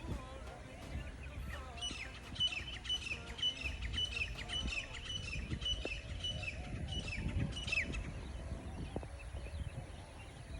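A songbird singing a long series of short, high, repeated notes, about two a second, each falling at its end. The series starts about two seconds in and stops near eight seconds, over a low background rumble.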